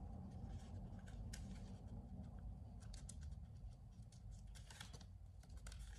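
Near silence: faint room hum with scattered soft little ticks and clicks of light handling.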